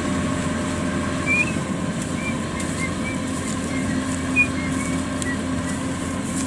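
Kubota DC-93 combine harvester running steadily as it cuts lodged rice, a constant machine hum. A series of short high chirps comes over it between about one and five seconds in, the loudest near the end of that run.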